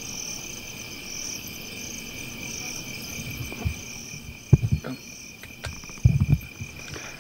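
Night chorus of crickets and other insects: a steady, high, pulsing trill. A few low thumps come through about four and a half seconds and six seconds in, the loudest sounds in the stretch.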